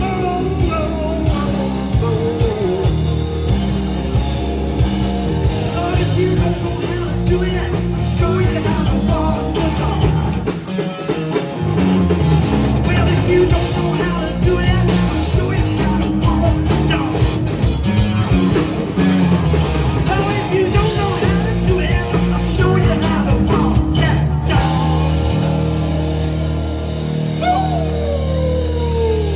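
Live rock band playing loud: electric guitar, bass guitar and drum kit with cymbals, and a falling glide near the end.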